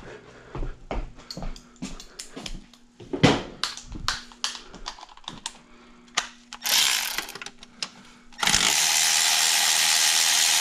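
Tools and sockets clicking and clinking as they are handled. Then a power ratchet runs, in a short burst about six and a half seconds in and then a steady run of about three seconds near the end, backing out 10 mm bolts.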